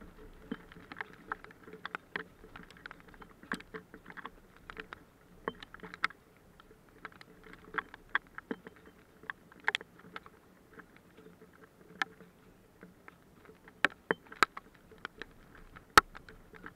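Scattered drops from a storm striking hard surfaces close to the microphone: irregular sharp ticks, several a second, some much louder than others, the loudest near the end, over a faint steady hum.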